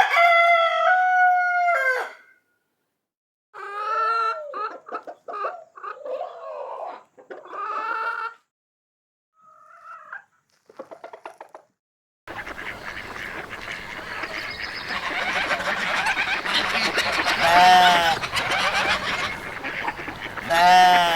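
Chickens calling: a rooster crows at the start, then a run of separate hen calls and clucks. About twelve seconds in, a busy flock takes over with constant calling, and louder calls stand out twice near the end.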